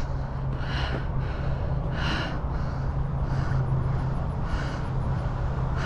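A man breathing heavily in and out close to the microphone, four breaths about a second and a quarter apart, over a steady low hum.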